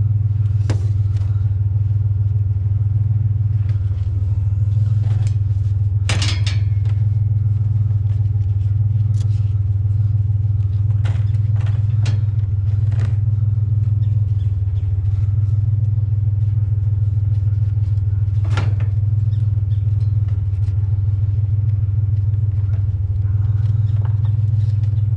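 Truck engine running steadily with a low hum, with a few sharp metal clanks and knocks.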